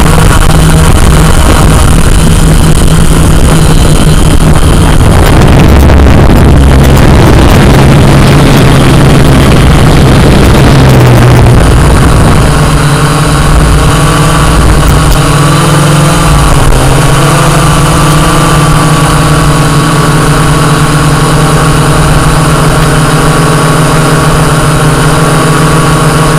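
Quadcopter drone's electric motors and propellers humming loudly, heard through the drone's own microphone. The first half is rougher and noisier. About halfway through the hum settles into a steady whine whose pitch wavers slightly for a moment.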